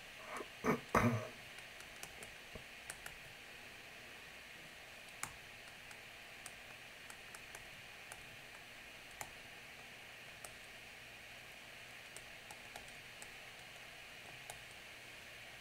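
Stylus tapping and clicking on a tablet screen during handwriting: scattered light, irregular ticks over a faint steady hiss, with a few louder knocks in the first second.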